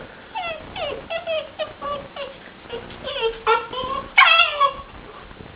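Two-month-old Alaskan Shepherd puppy (German Shepherd and Alaskan Malamute cross) whimpering in a string of short, high, falling whines, the loudest a little after four seconds in. It is whining from fear of going down the stairs.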